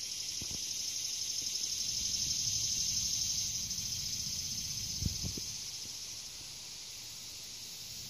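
A bumblebee buzzing low as it forages over the flowers, with a high, steady insect chorus that swells two to three seconds in and fades about six seconds in. Two soft knocks about five seconds in.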